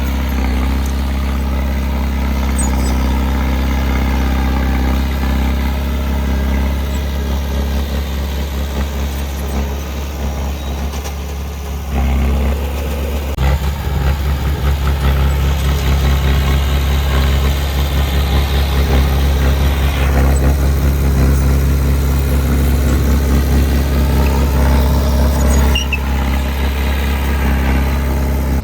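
Heavy diesel engine of earthmoving machinery running steadily. About twelve seconds in it changes and gets louder, with a rougher, noisier sound for several seconds.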